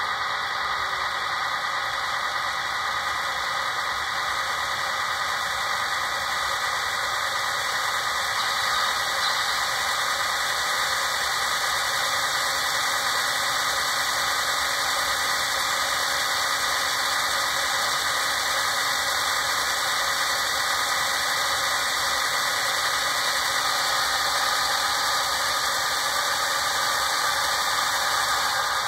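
The onboard sound system of an HO scale Broadway Limited Paragon 4 GE ES44AC model locomotive playing a steady diesel engine running sound through its small speaker. The reviewer finds the speaker somewhat hollow, tinny and a little rattly.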